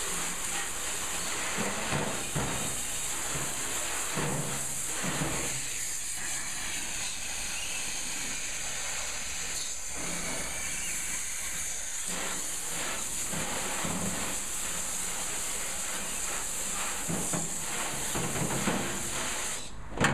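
Garden hose spray nozzle hissing steadily as its jet of water rinses a cast iron BBQ burner and splashes into a steel wheelbarrow, washing off the molasses-and-water rust remover after its soak. The spray cuts off near the end, followed by a knock.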